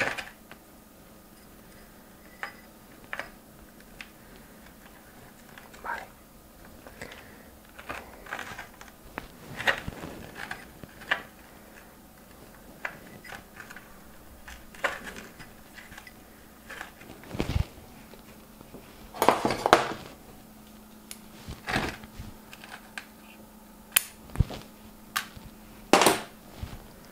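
Granular bonsai substrate (akadama and kiryuzuna) being pressed and worked by hand into a small ceramic pot: scattered crunches, rustles and light clicks of grit, with a louder cluster of crunching a little before two-thirds of the way through.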